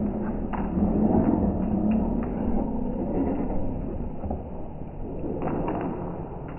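Low rumbling noise with a few light clicks: a small dog's claws tapping on a tile floor.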